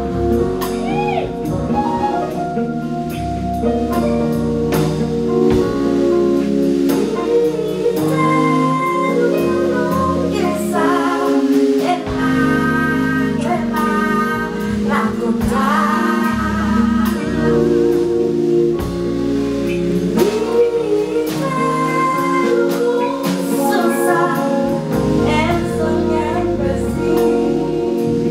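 A woman singing live with a band: long sung lines that bend and waver in pitch, over bass and percussion.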